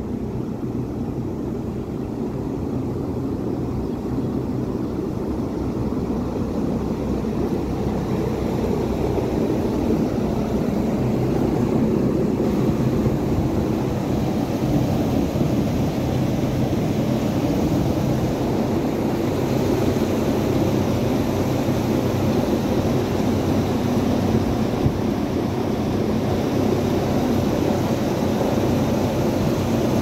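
A 600-ton HVAC cooling tower running: a steady drone from its fan with a rushing hiss of falling water. It grows louder over the first dozen seconds, and the hiss gets stronger in the second half.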